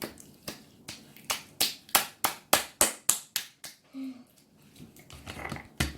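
Freshly activated, sticky glitter slime being squeezed and pulled by hand, making a fast run of sharp wet clicks and pops about three a second. They are loudest in the first half, pause briefly, then start again near the end.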